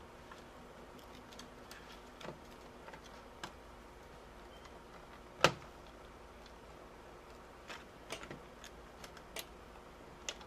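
Scattered small plastic clicks and taps from fingers working at the Compaq Presario 2100 laptop's screen base to unplug the backlight inverter's tiny wire connector. One sharper click comes about halfway through, and a few more come near the end.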